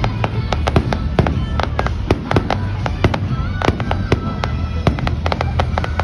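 Aerial fireworks crackling and popping overhead: a rapid, uneven run of sharp cracks, several a second.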